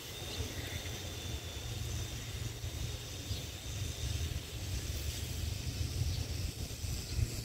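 Wind buffeting the microphone in an uneven low rumble, over faint outdoor hiss.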